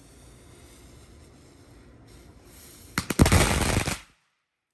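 Wolfpack Cannonball firework, a rolled-up ball of firecrackers, going off: about three seconds in, a few sharp cracks lead into a dense, rapid volley of firecracker bangs lasting about a second, which cuts off abruptly.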